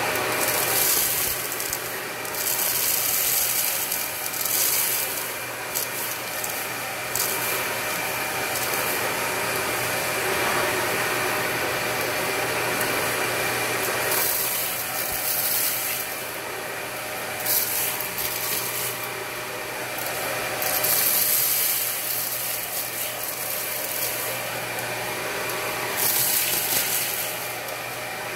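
Dyson Ball Multifloor vacuum cleaner running steadily with its crevice tool, sucking up rice and small hard debris from carpet: bursts of hissing rattle come and go several times as the grains are pulled through the tool and hose.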